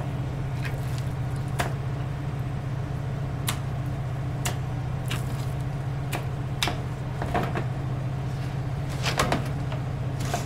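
Steady low machinery hum of a ship's galley, with scattered light clicks and knocks as pieces of seasoned chicken fillet are laid into a metal baking tray.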